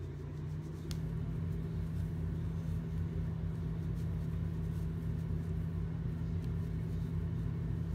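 A steady low machine hum with a single pitch, holding level throughout, and one faint click about a second in.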